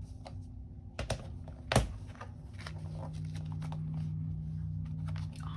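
Handling paper money, a wallet and a cash envelope on a glass desktop: light rustles and small clicks, with two sharper knocks about one and two seconds in, the second the loudest. A steady low hum comes in about halfway through.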